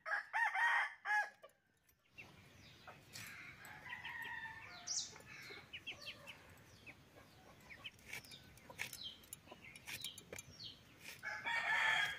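Chickens calling: a burst of short, pitched clucking calls in the first second and a half, and another burst just before the end. Between them small birds chirp over a soft background hiss, with light clicks from a bonti blade cutting bottle gourd.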